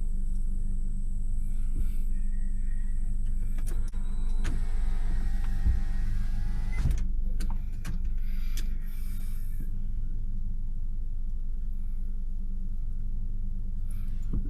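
Steady low engine hum, as inside a running vehicle. About four seconds in, a small electric motor whirs for roughly three seconds, with clicks at its start and a knock as it stops, as a power window does.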